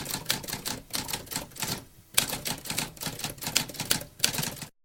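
Typewriter keys clacking in rapid runs, with a short pause about two seconds in; the typing stops just before the end.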